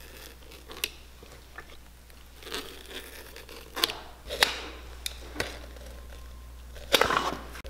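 Utility knife blade cutting and prying the old crepe rubber sole away from a Clarks Wallabee boot, giving scattered sharp crunching clicks as the glued rubber tears loose, with a louder cluster near the end.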